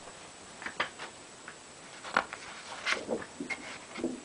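A handful of soft, scattered clicks and taps from handling the wooden pointer and the paper chart on the wall.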